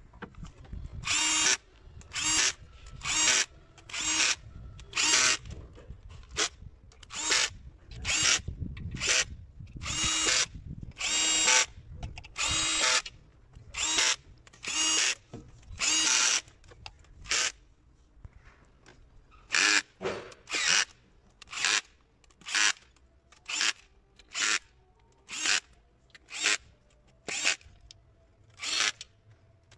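Bosch cordless drill-driver running in the camshaft-housing bolts on the cylinder head, in about two dozen short bursts of motor whine. Each burst lasts up to about a second, with brief pauses between, and the bursts are shorter near the end.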